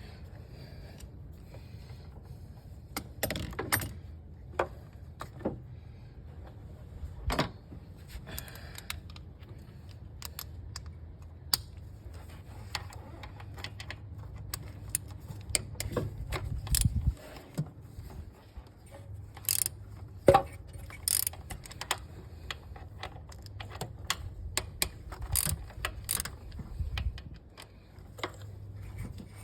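Irregular metallic clicks and clinks of hand tools and parts being handled during engine work, with some ratchet-like clicking, over a steady low hum.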